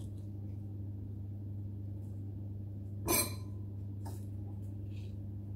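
A steady low electrical hum, with a short spoon scrape or clink about three seconds in and two fainter ones after it, as avocado flesh is scooped from its skin into a bowl.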